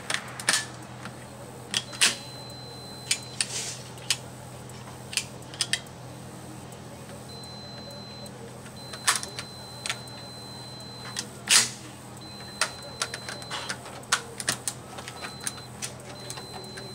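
Irregular sharp clicks and knocks, a dozen or more spread unevenly, the loudest about two seconds in and near the middle. Under them a faint steady high tone breaks off and comes back several times.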